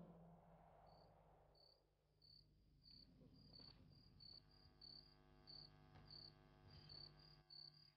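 Faint cricket chirping at night, short high chirps at one pitch about two a second, starting about a second in, over otherwise near silence. A fading musical tone dies away at the start.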